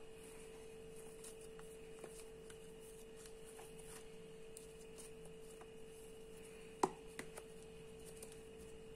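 Hands pulling apart soft bread dough in a metal bowl: faint scattered taps and rubbing, with one sharper knock about seven seconds in, over a steady faint hum.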